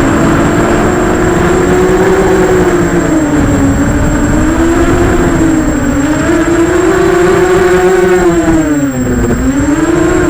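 Emax 250 FPV racing quadcopter's four brushless motors and props whining in flight, the pitch swinging up and down with throttle, with a dip and climb near the end. Wind buffets the microphone underneath.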